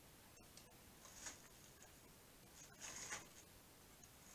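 Near silence, with two faint rustles about a second in and about three seconds in, from gloved hands handling a small copper piece and pliers.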